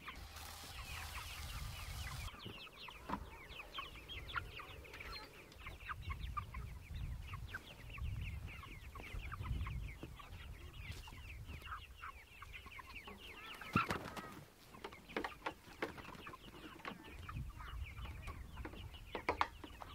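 A flock of chickens clucking, many short clucks overlapping throughout, with a single knock about two-thirds of the way through.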